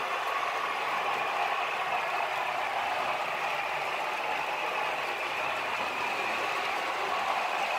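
H0-scale model freight train running along the track, a steady rattle of its metal wheels on the rails.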